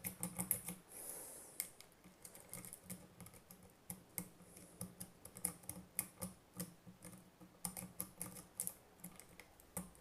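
Metal lock pick working the pins of a dimple lock cylinder under a tension wrench: faint, irregular light metallic clicks and ticks, a few per second.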